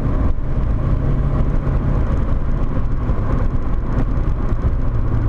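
Volkswagen Corrado 1.8 16V's four-cylinder engine pulling hard on track, heard from inside the car over steady road and wind noise.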